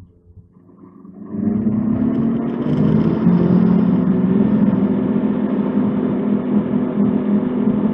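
Ski-Doo Renegade X 900 ACE Turbo R snowmobile's three-cylinder turbocharged engine opening up about a second in. It revs from about 3,600 to about 5,000 rpm, then holds a steady note as the sled accelerates.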